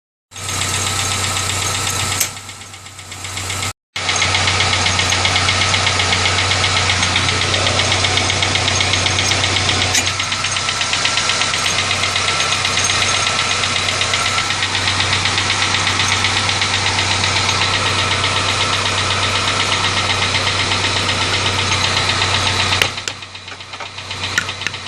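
Car engine running with a fast, even ticking noise of unknown origin that began after an oil change and persists with a newly fitted mass airflow sensor. The sound dips briefly a few seconds in and drops away near the end.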